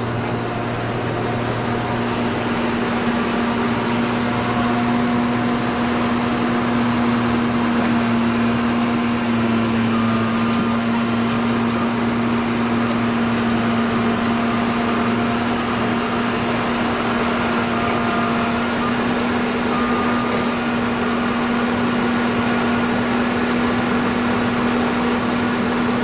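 A machine running steadily, with a loud, constant hum over a noisy whir.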